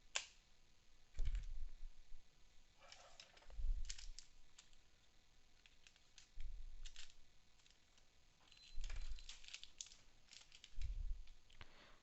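Hands working on an opened laptop, handling it and its small parts: about five soft low bumps spread through, with light clicks and scratching between them.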